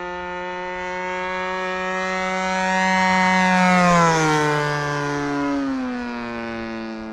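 Radio-controlled model plane's DLE 20RA single-cylinder petrol two-stroke engine running steadily in flight as the plane passes by. It grows louder to a peak about four seconds in, and its pitch drops as it goes past and away.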